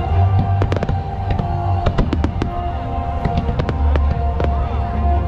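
Aerial fireworks bursting: a quick run of sharp cracks and bangs over a steady deep rumble, with music playing underneath.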